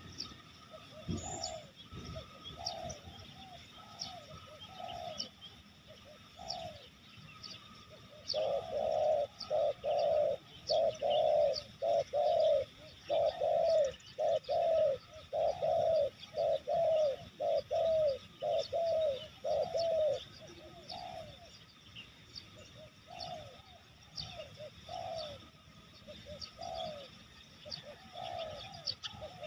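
Spotted doves cooing: a long run of short, low, repeated coo notes, dense and loud for about twelve seconds in the middle and sparser before and after. Faint high chirps of small birds run underneath.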